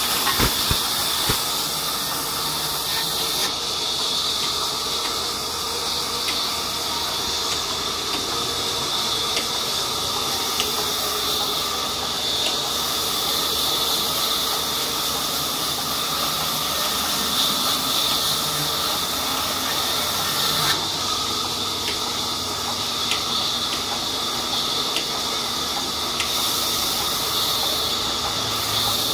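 Large belt-driven sawmill band saw ripping a thick mahogany slab lengthwise: a steady, high-pitched hiss of the blade cutting through the wood, with faint ticks scattered through.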